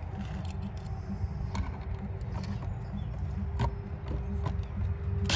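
A few light clicks and taps of small parts being handled, over a low steady rumble.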